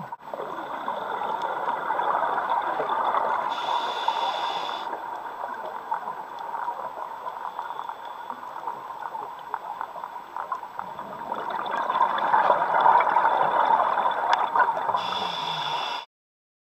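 Scuba regulator breathing heard underwater through the camera: a short hiss of inhaled air twice, and a long crackling, bubbling rush of exhaled bubbles, loudest a little past the middle and near the end. The sound cuts off suddenly shortly before the end.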